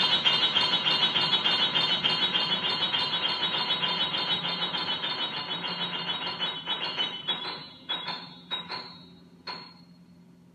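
Grand piano playing a fast, machine-like repeated figure of chords that grows steadily quieter, imitating the clatter of cotton-mill looms. About seven seconds in it thins out to a few separate struck chords, which ring and die away as the piece fades out.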